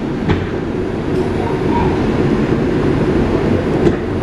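R142 subway train running on open track, heard from inside the car: a steady low rumble of wheels on rail, with a single clack about a third of a second in.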